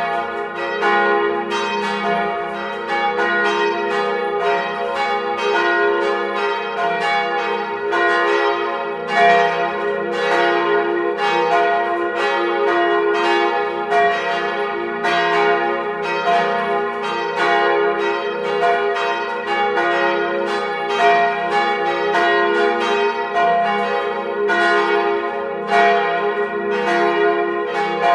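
Three 1948 Petit & Fritsen church bells, tuned F, A-flat and B-flat, swinging on straight axles and ringing together in a full peal, heard close up in the belfry. The strikes overlap, coming about twice a second, and the bells' tones hum on between them.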